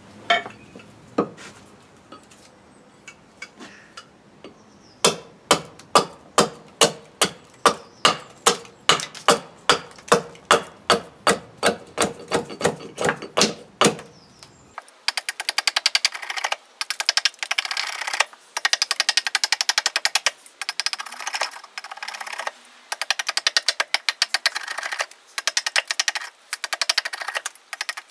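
Small axe chopping and paring a green birch billet on a wooden chopping block: a steady run of sharp knocks, about two and a half blows a second. About halfway the chopping turns into sped-up playback, a rapid, thin clatter of ticks in bursts with short pauses.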